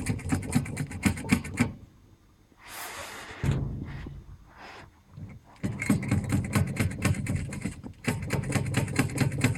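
Valeo clutch disc from a Lada Priora knocking: rapid rattling knocks in three bursts, with a short hiss between the first two. This is the disc's knock at 80,000 km.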